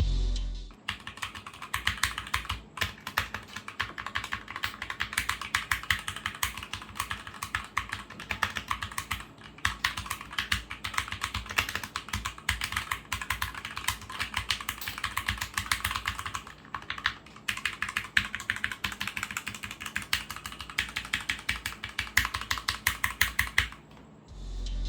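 Fast typing on a DeepCool KB500 TKL mechanical keyboard with Outemu red linear switches and double-shot ABS keycaps: a dense run of keystrokes, with brief pauses about a third and two thirds of the way through.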